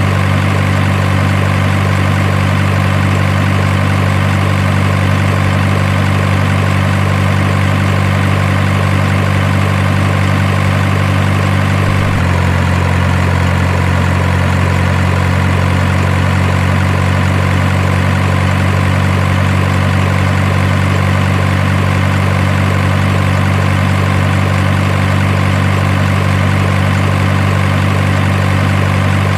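Heavy engine idling sound, a steady low drone that shifts in tone abruptly about twelve seconds in.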